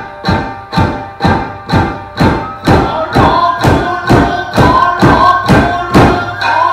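Nagauta accompaniment: sharp percussive strikes at an even pace of about two a second, over shamisen and a sung line that grows stronger about halfway through.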